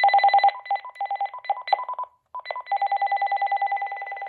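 Cordless phone's electronic ringer trilling, alternating between two pitches in two runs separated by a brief gap about two seconds in, the second run longer.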